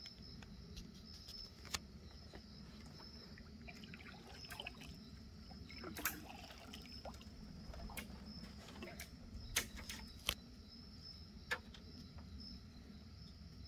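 Quiet pond at night: insects chirring steadily in a pulsing high chorus, with soft water sloshes and a few sharp clicks as a frog is stalked with a gig.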